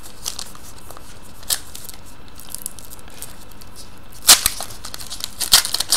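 Foil wrapper of a Panini Titanium hockey card pack torn open with one sharp rip a little over four seconds in, followed by a few crinkles and clicks of the foil. Before that, only faint handling clicks.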